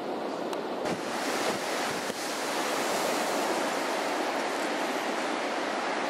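Wind over choppy water: a steady rushing hiss that grows louder about a second in and then holds.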